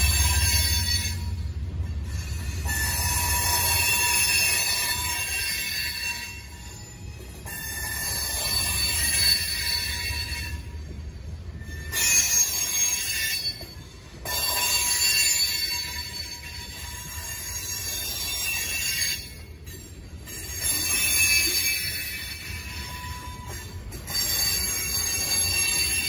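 Freight cars (covered hoppers and tank cars) rolling slowly past on street track, their wheels squealing in high-pitched tones that swell and fade car by car. The deep engine rumble of a GE B23-7 diesel locomotive fades away in the first couple of seconds.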